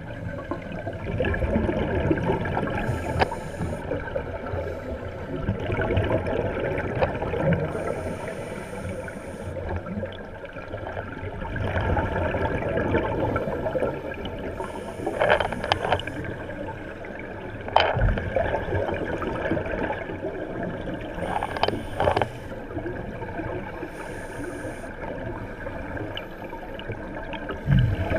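Scuba divers breathing through regulators, heard underwater: a steady wash of water noise, with a burst of bubbling exhaust every five or six seconds as each diver breathes out.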